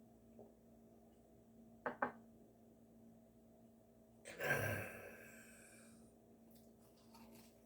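A man's loud, satisfied exhaled sigh, 'ahh', about halfway through, typical of the breath let out after downing a shot of liquor. Two quick clicks come a couple of seconds before it.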